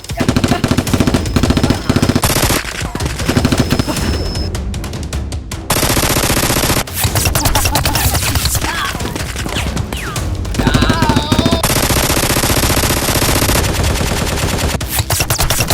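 Rapid machine-gun fire sound effects, in long bursts, over background music.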